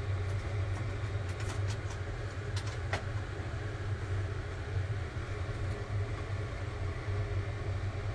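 Steady low kitchen hum beside a saucepan of soup heating on a gas stove, with a few light clicks between about one and a half and three seconds in.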